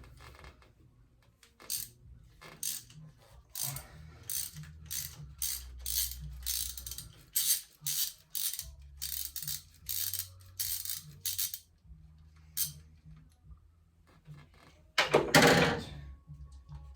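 Hand ratchet on an extension loosening a threaded plug in the intake manifold's coolant port, its pawl clicking in short irregular runs with each back-swing. Near the end comes a single louder burst of clatter lasting about a second.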